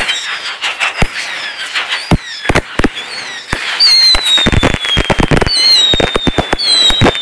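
Fireworks going off in a quick, irregular string of sharp bangs and crackles. From about four seconds in, several whistling fireworks each give a long, slowly falling whistle, overlapping one another over the continuing bangs.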